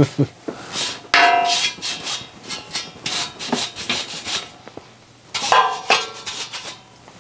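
Knocks, clicks and metal scrapes of the satellite receiver's casing and parts being handled and fitted back together on a table, with two short squeaky scrapes: one about a second in and one near six seconds in.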